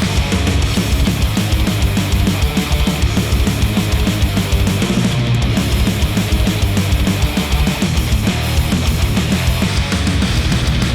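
Loud rock music with a fast, driving beat, played back through a headphone and picked up by microphones at the earcup.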